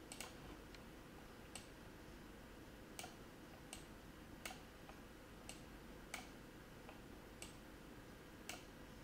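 Faint, irregular clicks of a computer mouse, about ten of them, over near silence.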